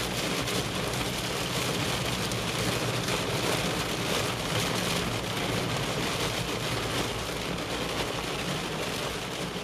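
Heavy thunderstorm rain pelting the car's roof and windshield, a dense steady hiss heard from inside the cabin, over the low hum of the car driving.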